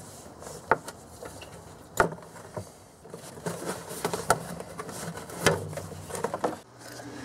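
Engine accessory drive belt being worked off its pulleys by hand, with scattered clicks and knocks and rubbing between them.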